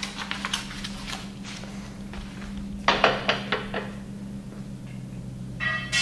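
Metal parts being handled: quick runs of clinks and knocks as sheet-steel stand panels and steel hardware are moved about, with a louder cluster of knocks about halfway through and a short ringing clink near the end.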